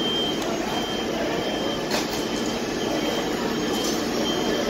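Fire truck engines running in a steady, loud din, with a thin high beep that comes and goes and a single click about two seconds in.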